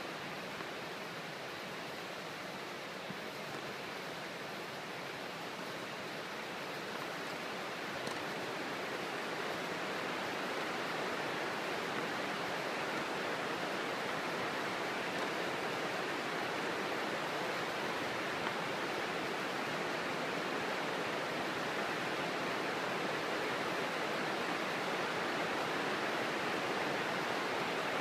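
Steady, even rushing noise with no distinct hits, growing a little louder from about eight seconds in.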